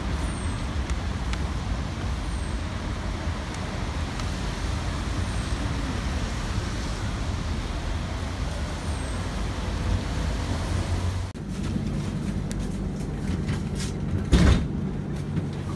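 A tram rolling in to a platform stop, a steady low rumble of its running on the rails. About eleven seconds in this gives way to the steadier low hum heard inside a moving tram, with one loud knock a few seconds later.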